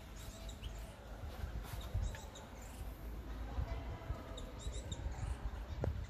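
White Java sparrow giving short, high chirps in quick runs of several notes, over a steady low rumble.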